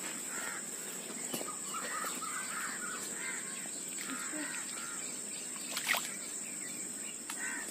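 Birds calling again and again in short arched calls, over a steady high-pitched insect drone, with one sharp click about six seconds in.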